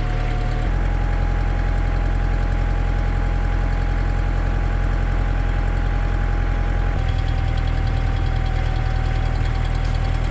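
Kubota tractor's diesel engine running steadily, its note stepping to a new setting about a second in and again about seven seconds in.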